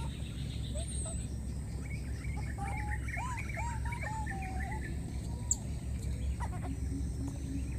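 Small animal calls: a quick run of short arched chirps and squeaks around the middle, over a steady low rumble.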